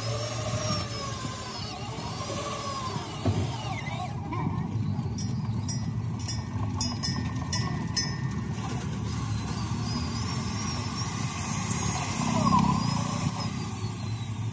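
A steady low engine rumble, as of a vehicle or machine running, swelling briefly near the end, with a few light clicks about four to eight seconds in.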